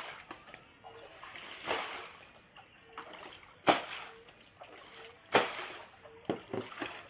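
Plastic shovel scooping floodwater off a floor and flinging it, splashing. There are three loud splashes about two seconds apart, then smaller splashes near the end.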